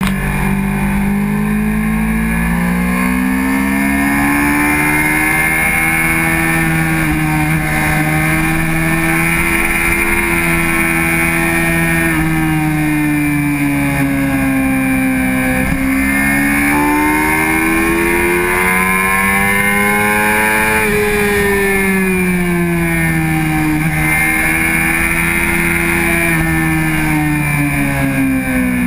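Honda CBR600RR inline-four sport bike engine under way, its revs rising and falling as the throttle opens and closes through a run of bends, with a couple of sharper drops in pitch. Steady wind rush on the microphone runs underneath.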